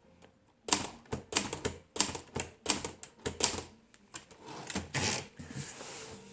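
1963 Hermes 3000 manual typewriter typing a run of separate keystrokes for an alignment test, each key strike sharp and distinct, a few a second. Near the end there is a longer, steadier mechanical noise.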